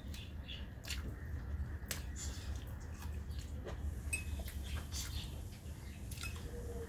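Eating by hand: scattered small clicks and smacks of chewing, and fingers mashing rice against a steel plate, over a steady low hum.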